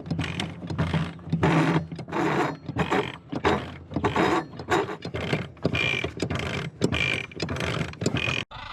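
A motor running steadily, with a low hum under rapid, irregular mechanical clattering and rattling and a few short high squeaks. It cuts off abruptly near the end.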